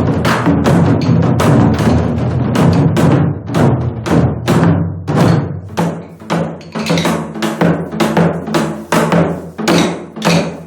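Korean buk barrel drums of an ogomu five-drum dance struck with sticks. Fast, dense drumming gives way about three and a half seconds in to separate accented strokes, several a second, over a steady low accompaniment.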